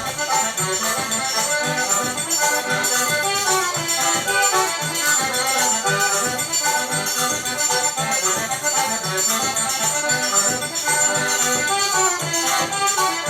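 Upbeat forró music: an accordion melody over a steady dance beat.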